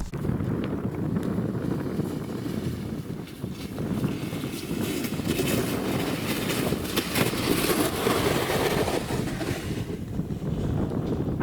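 Strong blizzard wind buffeting the microphone with a deep, steady rumble. A stronger gust with a rising hiss comes about five seconds in and eases near the end.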